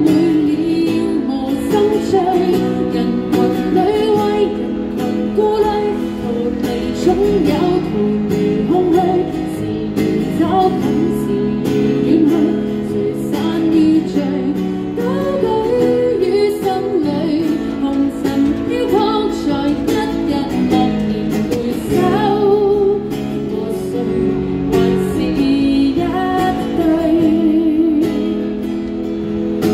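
A woman singing a song while playing an acoustic guitar, her voice amplified through a microphone, with a wavering vibrato on some held notes.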